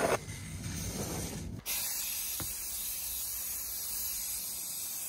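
Aerosol spray can hissing steadily as a coating is sprayed on. It starts abruptly about a second and a half in, with a single short click shortly after.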